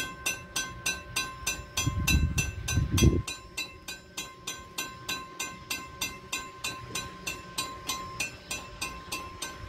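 Railroad grade-crossing warning bell ringing steadily in rapid, even strokes at one fixed pitch. A low rumble swells about two seconds in.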